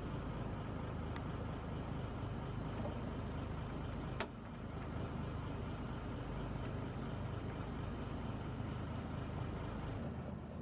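A boat's engine running steadily with a low rumble, and a sharp click about four seconds in.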